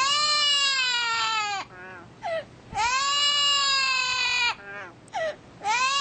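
Amazon parrot giving three long, drawn-out calls, each arching up and then down in pitch, with short rising squeaks between them.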